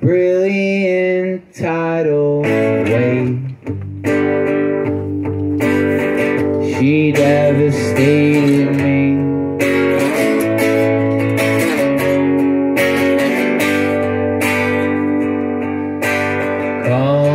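Steel-string acoustic guitar strummed steadily in a live solo performance, with a man singing over it.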